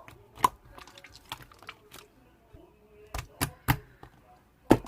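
A few sharp clicks and knocks at irregular intervals: one about half a second in, three in quick succession past the middle, and the loudest just before the end.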